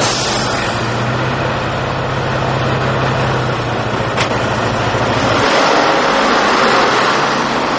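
Mercedes-Benz truck's diesel engine running steadily just after starting. About five and a half seconds in the engine note changes and the sound swells as the truck drives past close by.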